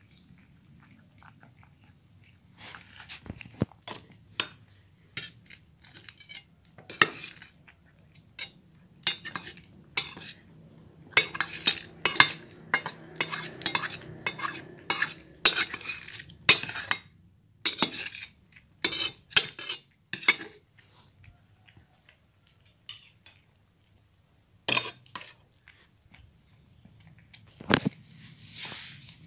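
A metal spoon clinking and scraping in a stainless steel bowl as wet cat food is scooped and stirred. The clinks come in irregular runs, busiest in the middle, with a few lone ones near the end.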